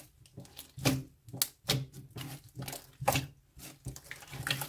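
Slime being squeezed and worked by hand, giving irregular sticky pops and clicks, a few a second.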